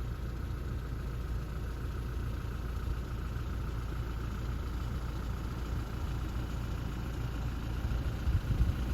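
Vehicle engine running with a steady low drone. Near the end it turns louder and more uneven, with low rumbling.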